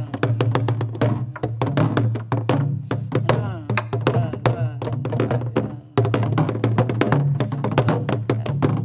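A group of sori-buk, Korean pansori barrel drums, played together: sticks clack sharply on the wooden frames and palms thud on the hide heads in a gutgeori-like jangdan pattern. The playing breaks off for a moment about six seconds in, then starts again.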